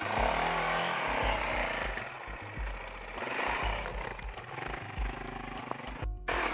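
Enduro dirt bike engine revving up and down in pitch as the bike climbs a rough, steep trail, with a brief break just after six seconds in.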